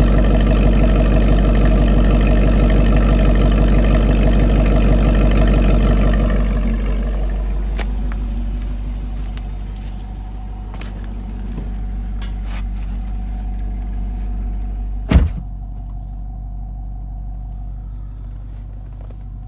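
Chevrolet Camaro 2SS's V8 engine running loudly, then settling to a quieter, steady running sound about six seconds in. A few faint ticks follow, and a single sharp bang comes about fifteen seconds in.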